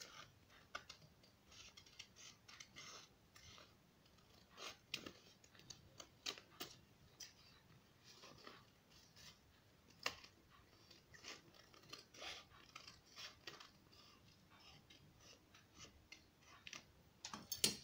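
Scissors snipping through lined notebook paper: faint, irregular short cuts as a paper pattern is trimmed to a rounded shape.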